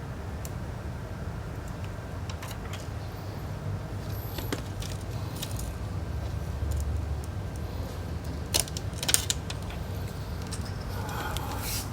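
Scattered light clicks and taps of small metal tools and phone parts being handled during an iPhone 6S battery replacement. A few sharper clicks come about two-thirds of the way in, over a steady low hum.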